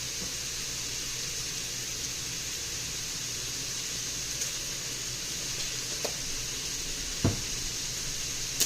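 Ground beef and onions sizzling steadily in a frying pan, with a single knock about seven seconds in.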